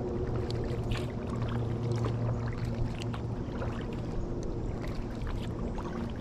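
Water splashing and dripping around a kayak on the water, in irregular small splashes, over a steady low hum.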